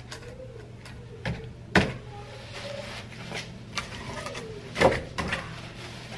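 Split firewood logs knocking and scraping as they are shifted on a stacked woodpile: a sharp knock about two seconds in and a cluster of knocks near the end, over a steady low hum.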